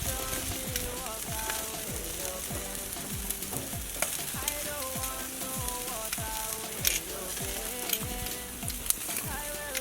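Chicken sizzling on a barbecue grill, a steady hiss with scattered pops and crackles of spitting fat. Music with a melody and a regular beat plays underneath.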